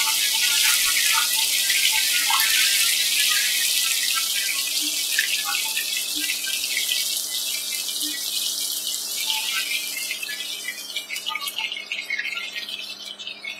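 Flour-coated chicken pieces deep-frying in hot oil in a kadai, sizzling and crackling steadily. The sizzle thins out over the last few seconds as the pieces are lifted out of the oil with a slotted spoon.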